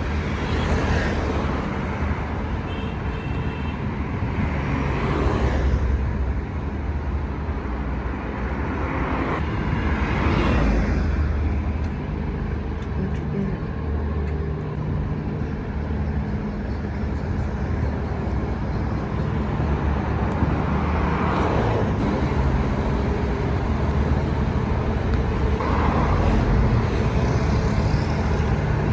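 Road traffic: a steady low rumble of engines and tyres, with several vehicles passing that swell up and fade about every few seconds.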